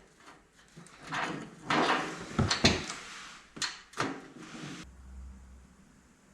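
Rummaging through bolts and hardware: a series of short knocks and rattles, then quieter, with a faint low hum near the end.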